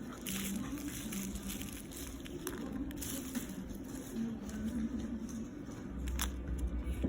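Packaging being handled during an unboxing: irregular crinkling and crackling of wrapping, with small clicks.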